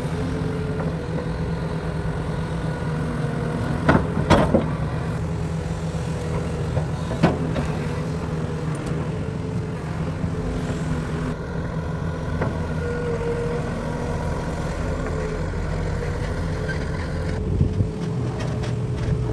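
Heavy construction machine's diesel engine running steadily, with a few sharp metallic knocks about four seconds in, again around seven seconds and near the end.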